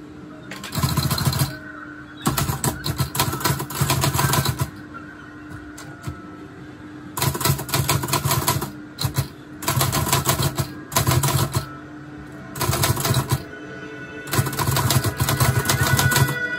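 Olivetti Lettera 25 portable manual typewriter being typed on: rapid clattering runs of key strikes in bursts of a second or two, with short pauses between, over faint background music.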